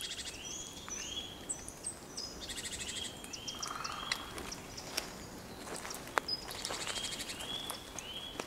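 Forest field recording with birds calling: repeated short notes that rise and then level off, some higher buzzy trills, and a few sharp clicks over a soft background hiss.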